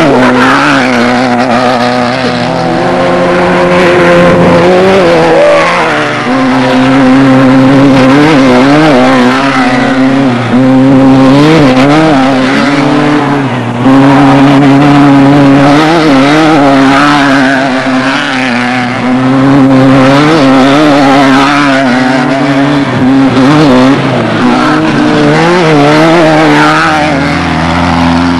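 Off-road desert race vehicle's engine running hard under throttle, its revs climbing and falling as it races over rough ground, with a few brief lifts off the throttle.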